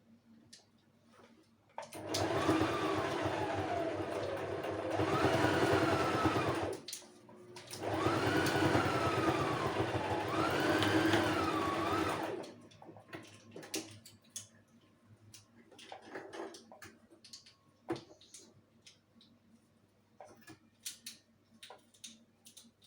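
Electric sewing machine running in two bursts of about five seconds each. Its motor whine rises and falls in pitch as the speed changes.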